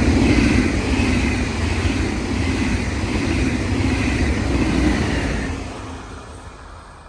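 A train passing close by: loud rolling noise for about five seconds, then fading away as it recedes.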